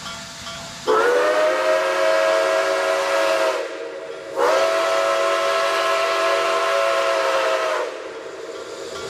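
Steam locomotive whistle blowing two long blasts, each a full multi-pitched tone that bends up slightly as it opens, with a short gap between them, over a steady steam hiss.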